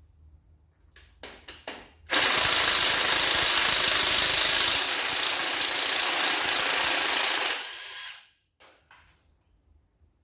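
Power impact wrench hammering in one continuous run of about five and a half seconds, easing off a little partway through and then stopping, during an engine teardown. A few light clicks of handling come before it.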